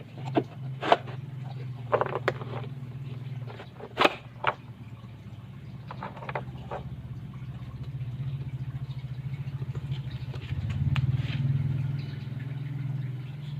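Electric drill running steadily as the drive of a homemade wood lathe, with a few sharp knocks in the first few seconds. It gets louder for a couple of seconds near the end.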